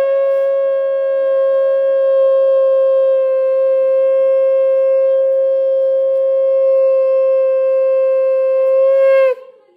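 Conch shell (shankha) blown in one long, steady note of about nine seconds that cuts off near the end, as is customary at a Bengali turmeric ceremony.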